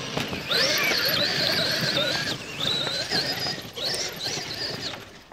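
Electric Traxxas RC monster truck's motor and drivetrain whining under throttle, the pitch rising and falling in three bursts as it drives up a grassy slope, with tyre and gravel noise underneath.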